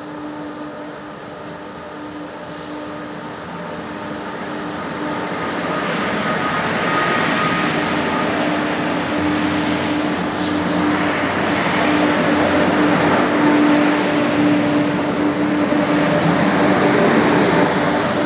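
A vehicle engine running with a steady hum over rushing noise. It grows louder through the first half and then holds.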